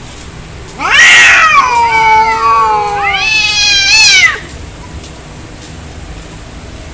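Angry cat yowling: a long caterwaul that rises and then slowly sinks, followed at once by a second, shorter rising-and-falling yowl, both stopping about four and a half seconds in. An aggressive, fight-type cat call.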